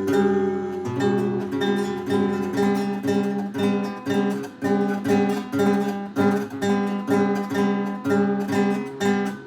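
Acoustic guitar strummed in a steady rhythm, about two strokes a second on held chords.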